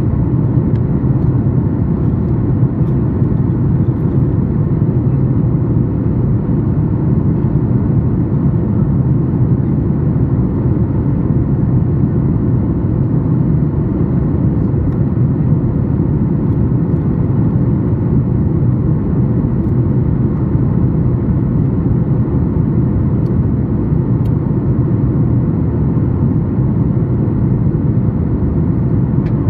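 Steady cabin noise of a Boeing 737-8 MAX in flight: an even, deep rumble of its CFM LEAP-1B jet engines and the airflow over the fuselage, with a faint steady hum through it, heard from a window seat inside the cabin.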